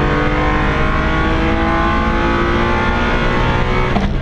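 Hakosuka Nissan Skyline's straight-six engine, heard from inside the cabin, pulling hard under acceleration with its pitch rising steadily. About four seconds in the sound breaks off briefly for an upshift, then picks up again.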